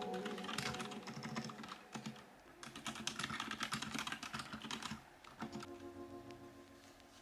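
Typing on a Royal Kludge RK68 65% mechanical keyboard fitted with Gazzew U4 Boba silent tactile switches. A quick run of keystrokes stops about five seconds in.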